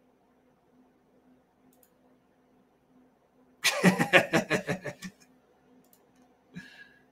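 A man laughing out loud in quick, rhythmic bursts for about a second and a half, starting about three and a half seconds in.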